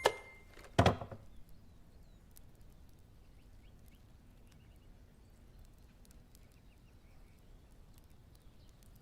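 A sharp knock and then a heavier thud just under a second later, followed by faint, quiet ambience with a few small high chirps.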